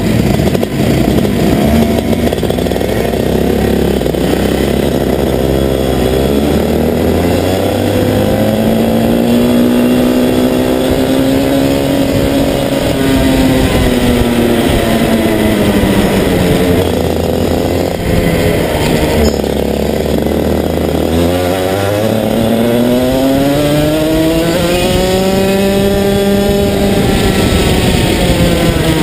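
Go-kart engine heard from on board, running low at first, then revving up as the kart accelerates, dropping in pitch as it slows for a bend, and climbing again down the next straight.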